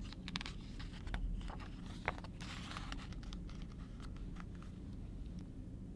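A page of a large hardcover picture book being turned by hand: paper rustling and sliding in short bursts, with a few light clicks and one sharper tap about two seconds in.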